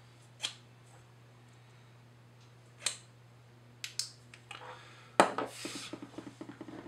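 A few single sharp clicks, one of them a small flashlight's switch turning the light off. About five seconds in comes a knock, then irregular handling clatter and rustle of small objects on a wooden table, over a steady low hum.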